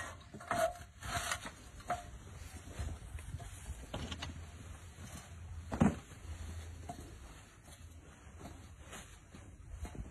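Scattered knocks and scrapes of boards being handled and set in place in a grave, with one sharp, louder thud about six seconds in.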